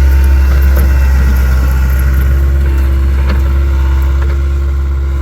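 Takeuchi TL26 skid steer's engine running steadily under load, a loud low drone with a steady hum above it.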